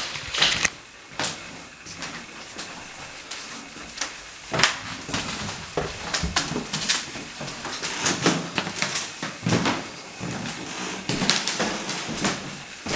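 Irregular footsteps and knocks on hardwood floors in a small, echoing room, a sharp click every second or so.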